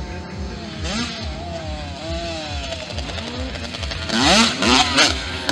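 Mini motocross bike engines running on the track. About four seconds in, a closer bike gets louder and revs up and down repeatedly as it accelerates.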